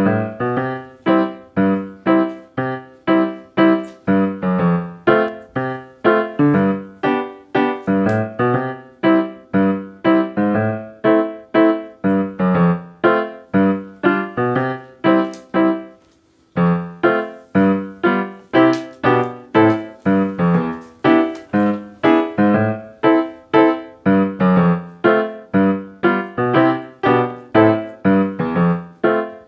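Background piano music: a gentle run of evenly paced notes, about three a second, each dying away, with a brief pause about sixteen seconds in.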